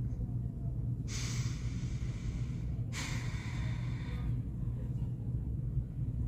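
A woman sighing twice: two long breaths, the first about a second in and the second right after it, over a steady low hum.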